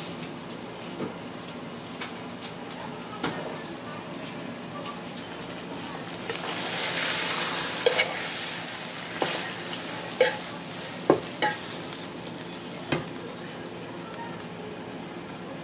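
Hot sauced hot dogs tipped from a skillet into a glass baking dish of sauce: a sizzling hiss that swells about six seconds in. Several sharp clinks and knocks of metal against the glass dish follow over the next few seconds.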